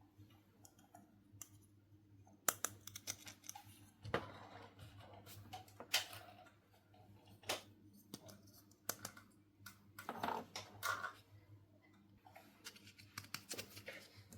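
Small plastic toy pieces being handled and set down: irregular light clicks and taps, with brief rustling a few times.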